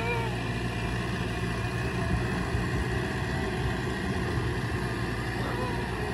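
Farm tractor's diesel engine running steadily under load while pulling a disc harrow through the soil.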